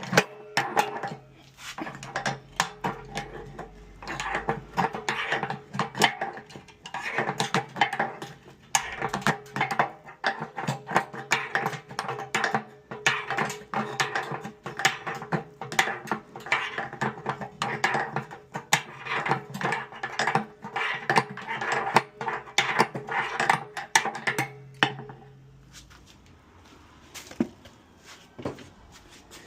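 Background music with a busy percussive rhythm over held notes, which stops about 25 seconds in, leaving only a few faint clicks.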